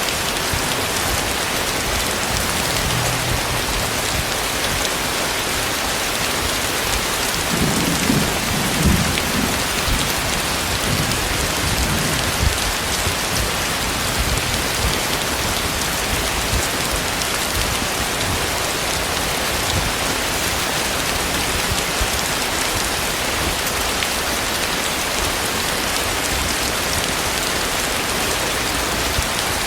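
Heavy tropical rain pouring down steadily, with a low rumble of thunder swelling about eight seconds in and a few fainter low rumbles just after.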